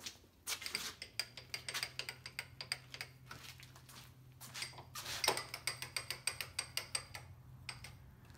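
Small metal parts clicking and rattling in quick, irregular succession with a light metallic ring, over a steady low hum that comes in about a second in.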